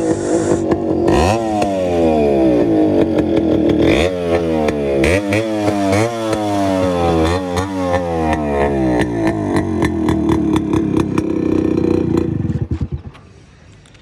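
Yamaha RX100 two-stroke single-cylinder motorcycle with twin original silencers and cut mufflers, running full loud and revving through repeated rising sweeps as it rides up, then holding a steadier note before the engine sound cuts out near the end.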